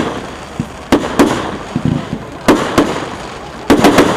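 Fireworks bursting: a string of sharp bangs, several a few seconds apart and a quick cluster of three or four near the end, each followed by a fading echo.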